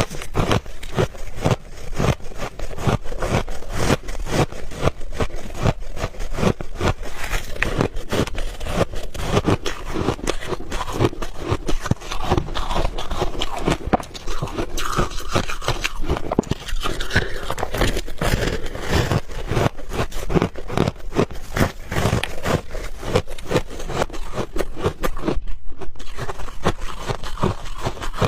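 Close-miked crunching and chewing of refrozen ice balls: a fast, dense stream of sharp cracks and crunches, with one brief break about 25 seconds in.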